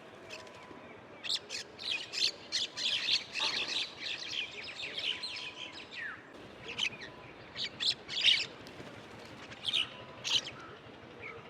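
Birds chirping outdoors: a dense flurry of short, high chirps about a second in, then scattered single chirps for the rest of the time.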